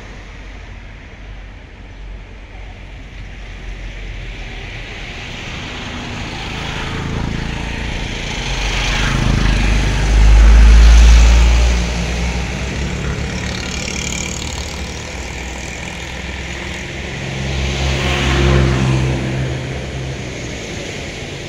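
Passing motor vehicles: engine sound swells to a loud peak about halfway through, dies back, and rises again near the end.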